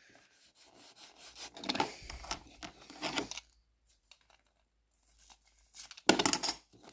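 Newspaper being rubbed and crinkled along the edge of a model van's roof to crease a line for cutting. The rustling comes in soft stretches, with a louder, sharper burst of paper noise about six seconds in.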